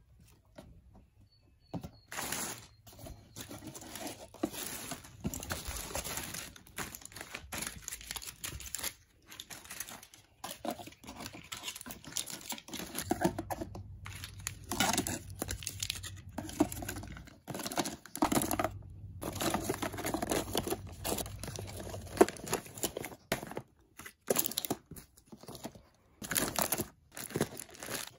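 Foil-and-plastic blister packs of tablets crinkling and rustling as they are handled and stacked into a plastic box, in uneven bursts beginning about two seconds in.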